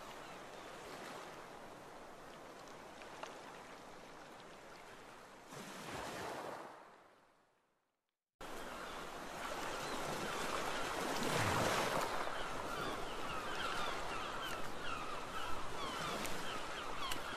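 Steady rushing water ambience like waves or flowing water, fading out about seven seconds in. After about a second of silence it starts again louder, with short high chirps over it.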